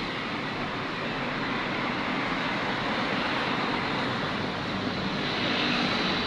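Steady, noisy road traffic passing under a highway overpass, a constant wash of vehicle noise with no single event standing out.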